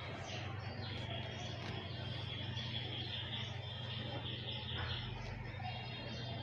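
Quiet room background: a steady low hum, with faint high chirping over it.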